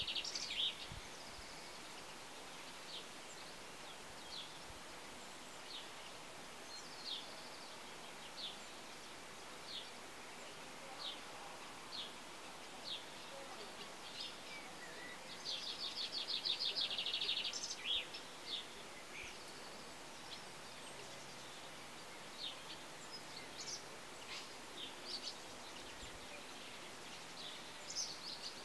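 Small birds chirping now and then, short high notes over a steady faint hiss, with a rapid trill lasting about two seconds around halfway through.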